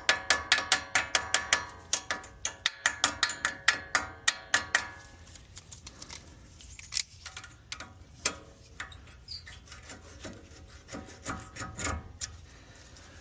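Quick metallic tapping and clicking, about five ringing strikes a second for the first five seconds, then scattered clicks and scraping: tools working on the upper pin and retainer of a Toyota Tundra's front brake caliper.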